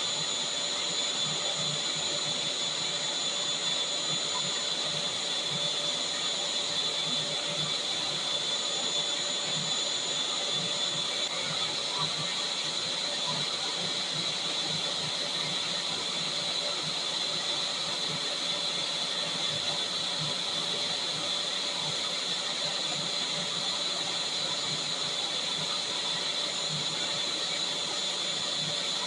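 Vacuum cleaner running steadily: a constant rush of air with a high whine over it, unchanging throughout.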